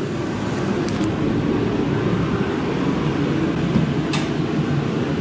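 A fan running steadily, a constant low whooshing hum, with a couple of light clicks about a second in and again about four seconds in.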